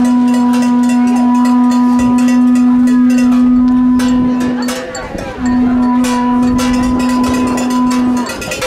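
A horn blown in two long, steady low notes, the first lasting nearly five seconds and the second about three seconds after a short break. Cowbells clank throughout.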